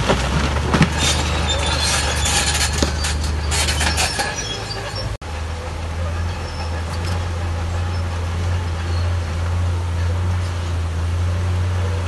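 Heavy earthmoving machinery's diesel engine running with a steady low drone, with rattling and knocks over the first four seconds. The sound drops out for an instant about five seconds in, and the engine drone then carries on evenly.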